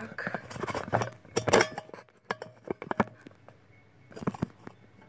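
Things being handled on a kitchen counter: a run of irregular knocks, clinks and rustles, busiest in the first two seconds, then a few scattered knocks.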